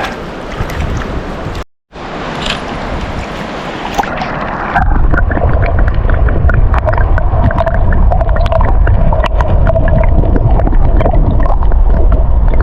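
River water rushing and gurgling close to the microphone, with a brief dropout just under two seconds in; from about five seconds in it gets much louder, with a heavy low rumble.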